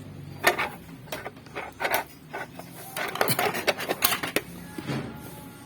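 Hands handling a parcel's broken contents: irregular clicks, clinks and scraping as pieces and packaging are moved about.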